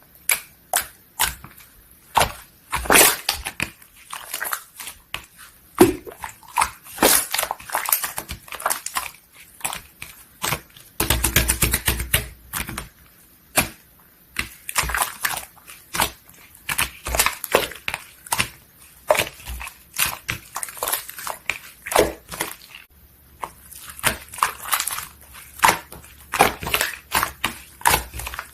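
Hands squishing, pressing and folding a two-layer cheese slime, making wet clicks and pops at an irregular pace, with a fast run of crackling pops about eleven seconds in.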